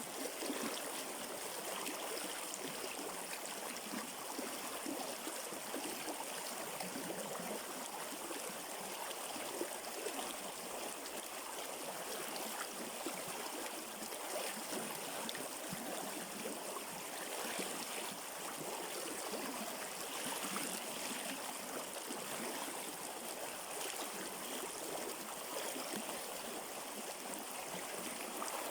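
Shallow river stream flowing over rocks: a steady rush of water with trickling and gurgling.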